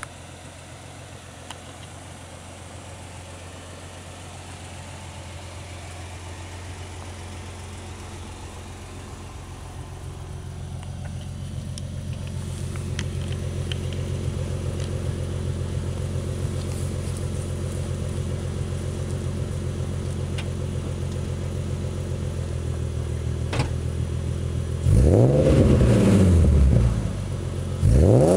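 1993 Nissan 300ZX's naturally aspirated 3.0-litre V6 idling through Stillen headers and a Billy Boat exhaust, getting steadily louder over the first dozen seconds. Near the end it is revved sharply up and back down, and a second rev begins just before the end.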